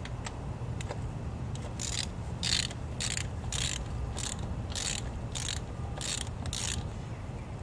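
Hand ratchet wrench clicking in about nine short bursts, roughly 0.6 s apart, starting about two seconds in, as a bolt is run back in and snugged up after the oil drain.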